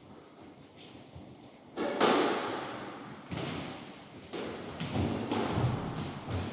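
Squash rally: the ball is struck by rackets and slaps off the court walls in a string of sharp hits that echo around the court, the loudest about two seconds in.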